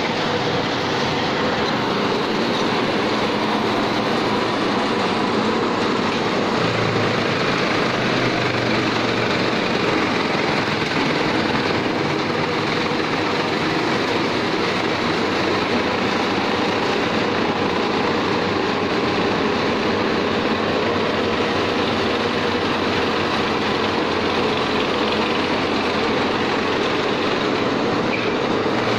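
Three-mouth gear chaff cutter, driven by an electric motor, running and chopping green fodder stalks as they are fed in by hand: a loud, steady mechanical running and cutting noise.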